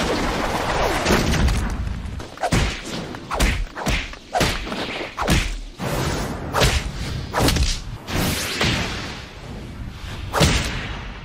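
Animated fight sound effects: a fast run of whooshes and hard thuds of blows landing, more than a dozen impacts, the loudest near the end.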